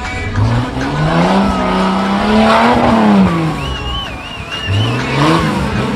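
An off-road 4x4's engine revving up and holding, then dropping back, and revving up again near the end. A wavering high-pitched squeal comes through briefly about four seconds in.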